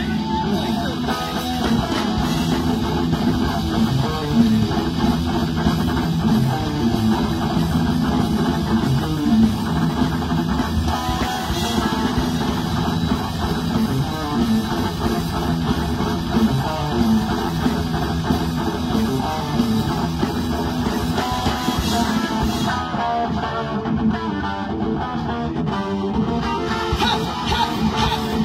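A rock band playing live: loud electric guitars and drum kit in a steady, dense wall of sound.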